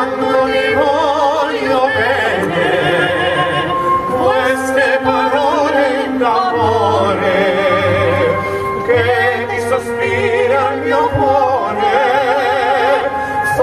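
Two male voices singing a duet in operatic style, holding long notes with wide vibrato, over an instrumental accompaniment.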